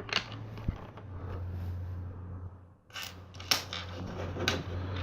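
Plastic LEGO bricks being handled and pressed onto a build: a few sharp plastic clicks over a soft rustle of pieces.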